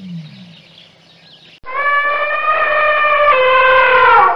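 African elephant trumpeting: one long call of about three seconds that starts abruptly about a second and a half in, holds a steady pitch, drops a step partway through and slides down as it ends.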